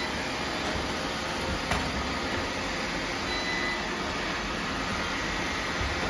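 Many robot vacuums running at once, their motors and brushes making a steady, even whir with a few faint high-pitched whines on top.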